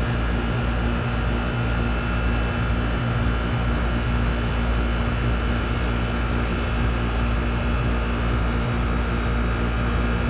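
Grandaire central air conditioner condensing unit running steadily just after startup: an even compressor hum under the rush of the condenser fan, with a faint steady high tone above.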